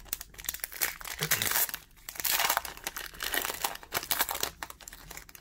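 Foil wrapper of a hockey trading-card pack crinkling and tearing as it is ripped open and pulled off the cards by hand, in several loud rustling spells.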